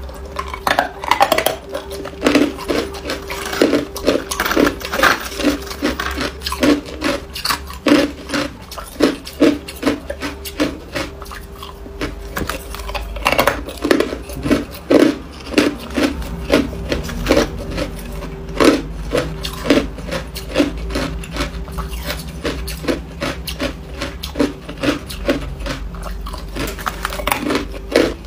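Hard ice cubes being bitten and crunched between the teeth, a long uneven run of sharp cracks and crunches a few to the second, with a faint steady hum underneath.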